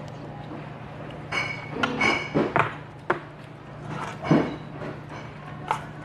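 Metal spoon clinking against a stainless steel bowl: several short, ringing clinks, with softer knocks and mouth sounds of chewing in between.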